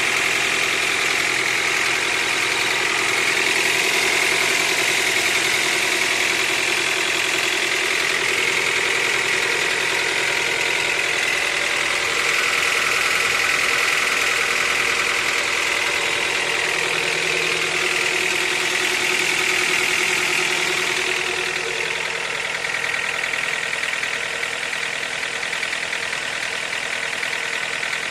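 Eighth-generation Honda Accord engine idling steadily with a fast, even knocking. This is the engine knock the owner is showing at 63,000 mileage. The sound gets a little quieter about two-thirds of the way through.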